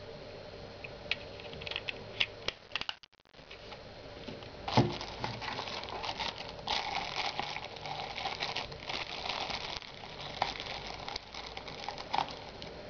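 Clear plastic packaging crinkling and rustling as hands work in a small mouse box, with scattered light clicks and taps and one louder knock about five seconds in.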